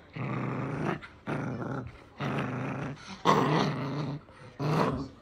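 Maltipoo puppy growling in play while tugging on a rope toy: five growls, each under a second long, with short breaks between them.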